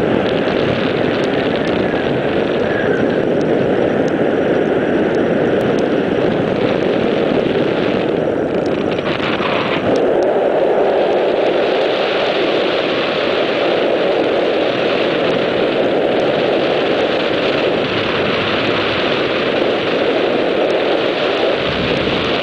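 Loud, steady rush of airflow over the microphone of a camera carried in flight on a paraglider. Its tone shifts briefly about nine seconds in.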